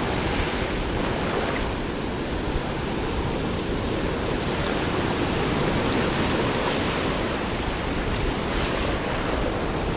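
Ocean surf washing up and running back over the sand at the shoreline, a steady rushing wash of waves.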